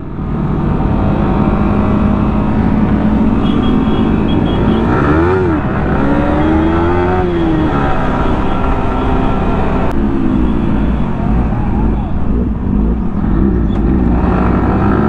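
Sport motorcycle engine running under way, its pitch rising and falling several times as the throttle opens and closes, over steady wind rush on the microphone.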